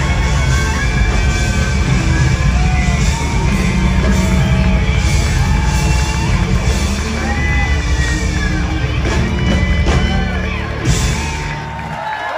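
A rock band playing live in a large hall, with heavy bass and drums, as the crowd whoops and yells over it. Near the end the band stops and the crowd's cheering carries on.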